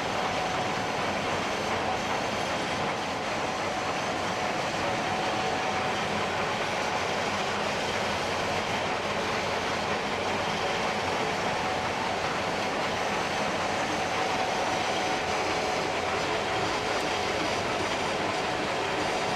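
Gleaner S67 combine running steadily while harvesting soybeans: a dense mechanical rumble and rattle with a thin, steady whine.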